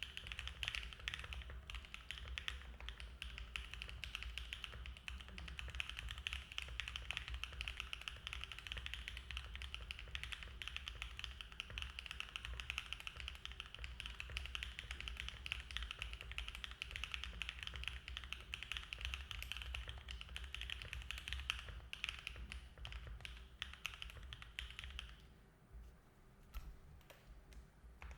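Continuous typing on a Mode Envoy custom mechanical keyboard with SOTC switches lubed with Krytox 205g0, an FR4 plate, plate and case foam, and GMK keycaps. Keystrokes clack one after another. About 25 seconds in, the typing thins to a few separate keystrokes.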